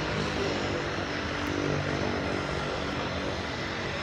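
Seaplane's propeller engine running with a steady drone, the plane getting ready to depart.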